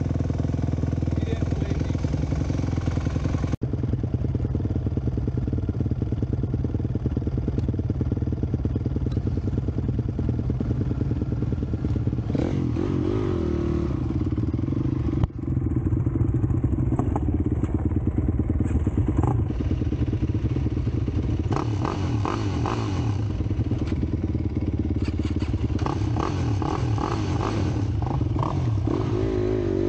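Honda CRF250X dirt bike's single-cylinder four-stroke engine running steadily as it is ridden, with a quad's engine alongside. The sound jumps abruptly twice, and the engine note rises and wavers about a third of the way in and again near the end.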